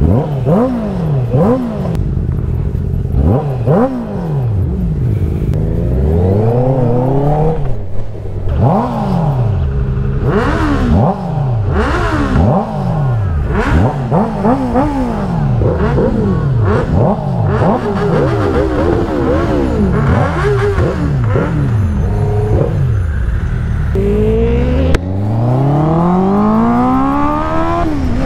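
Several superbike engines revved in quick, overlapping throttle blips, each rising and falling in pitch, then near the end one engine pulls up through its revs in a long rising climb as a bike accelerates. A single sharp click cuts through shortly before the climb.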